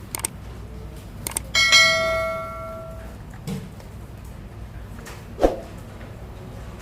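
A few sharp clicks, then a small metal object rings with a clear bell-like tone that fades over about a second and a half; a single knock follows later.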